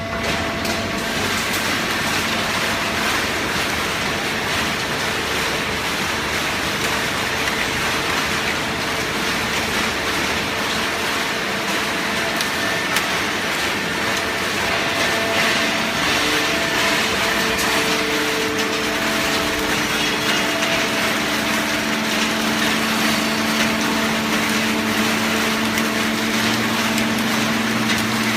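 Fully automatic horizontal cardboard baler running: a steady, dense mechanical noise with a hum that grows stronger in the second half.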